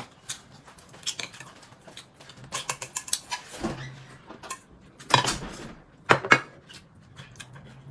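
Chopsticks and bowls clinking during a meal: a scattered run of small clicks and clinks, with two louder knocks about five and six seconds in.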